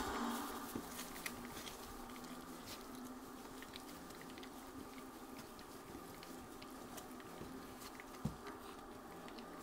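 Four-week-old bullmastiff puppies eating soft puppy food from a bowl: scattered small smacks and clicks of chewing and lapping, with one sharper knock about eight seconds in.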